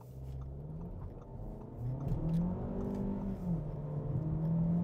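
Audi Q2's 1.5-litre turbocharged four-cylinder petrol engine under hard acceleration in sport mode, heard from inside the cabin. The revs climb, drop back twice as the dual-clutch automatic shifts up, and climb again as the engine comes on boost.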